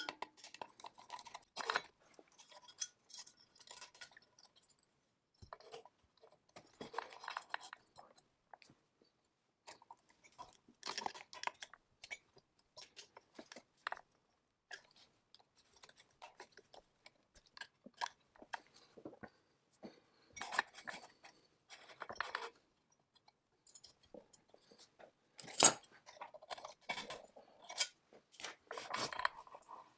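Intermittent small metallic clicks, clinks and scrapes of hand work with tools and small screws on a chainsaw engine's ignition coil and wiring, with short pauses between them. One sharper click comes near the end.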